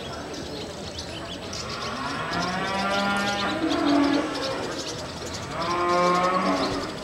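Cattle mooing twice: a long moo starting about a second and a half in, then a shorter one near the end.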